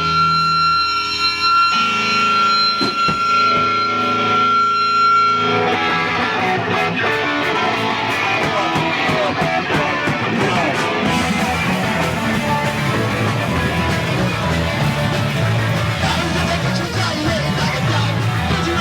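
A punk rock band playing live and loud. Sustained guitar chords with a steady high ringing tone come first, then the full band with drums crashes in about five seconds in.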